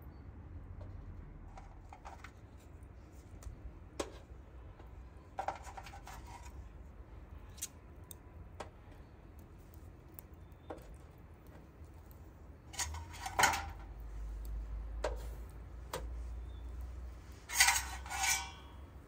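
Flat steel kebab skewers being laid across the metal rim of a charcoal grill, clinking and clattering at irregular moments, the loudest clatters near the end.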